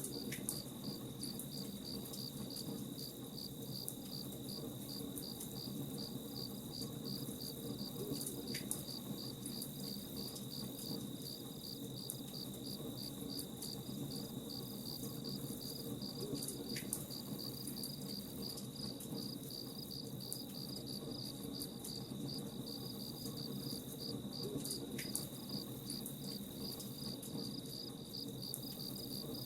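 Crickets chirping in a steady, even pulse, about three chirps a second, over the light, scattered crackle of a campfire.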